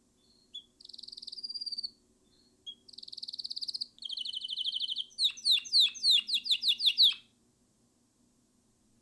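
Canary singing: rapid high trilled phrases, then a louder run of quick downward-sweeping notes, about four or five a second, that stops abruptly near the end.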